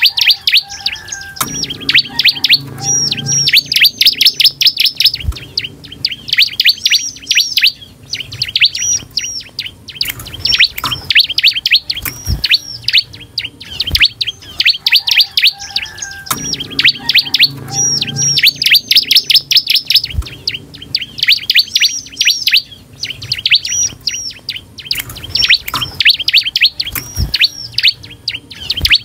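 Bar-winged prinia (ciblek) singing hard: rapid strings of sharp, high chirps and trills, repeated in phrase after phrase with short breaks. A few short knocks come in between.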